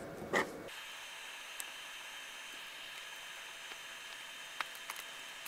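Faint steady hiss with a few small, sharp clicks of small screws and fingers on a plastic hard-drive carrier as the screws are set in by hand.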